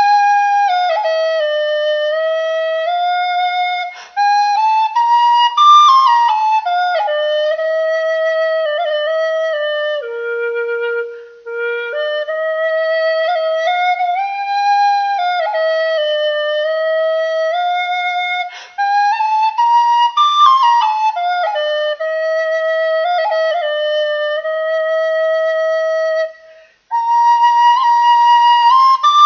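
Tin whistle playing a slow melody: long held notes with quick ornamental flicks between them, broken four times by short pauses for breath.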